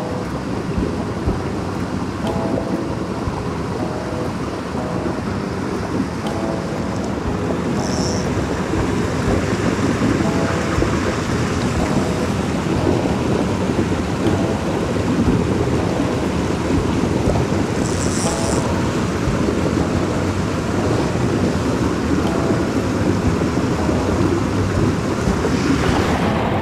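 Small waterfalls of a mountain brook trout creek pouring over boulders into a pool: a steady rush of falling water.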